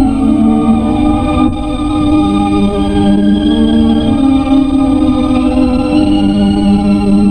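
Background film music: a slow melody of long held notes over sustained lower notes, in an organ-like tone.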